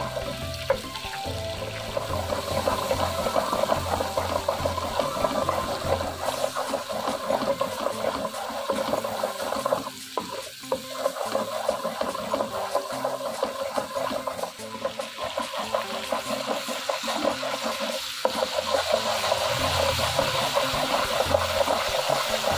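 Chopped onion sizzling and crackling as it fries in oil in a wok, stirred with a wooden spatula. The sizzle grows louder over the last few seconds as a white liquid is poured in from a packet.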